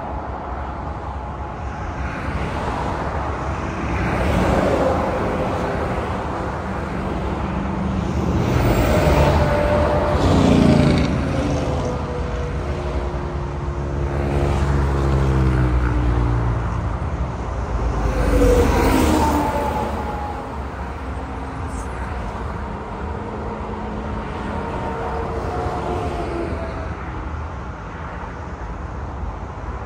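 Highway traffic passing close by: a run of cars and a truck, each swelling and fading with tyre roar and engine tones that drop in pitch as they go past. The loudest passes come around the middle and again a few seconds later.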